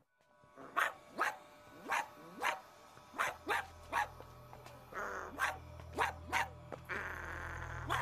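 Small dog barking repeatedly, about a dozen sharp barks. A steady low vehicle engine rumble comes in underneath about halfway through.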